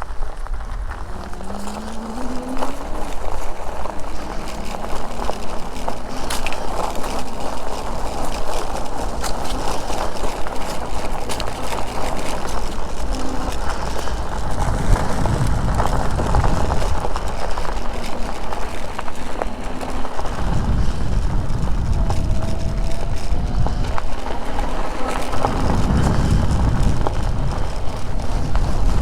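Wind buffeting the microphone and the rolling noise of a moving e-bike, with a faint whine that rises in pitch about a second in.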